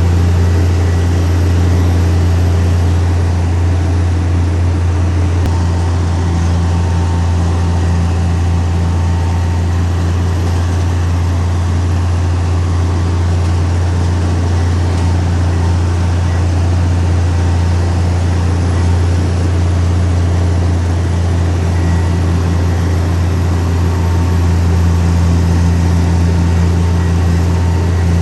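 Heavy diesel engine of earthmoving machinery running steadily, a deep constant drone that swells slightly now and then.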